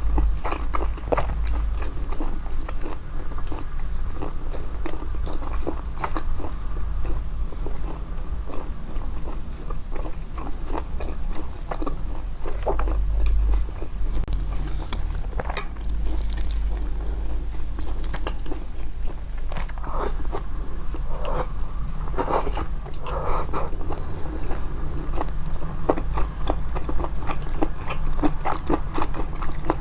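Close-miked chewing of japchae, glass noodles and vegetables, amplified: a continuous run of short mouth clicks and crackles, with a busier stretch of louder strokes about two-thirds of the way through.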